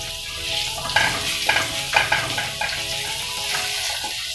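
Potato cubes sizzling in hot oil in a frying pan while a wooden spatula stirs them, scraping through the pan in strokes about twice a second.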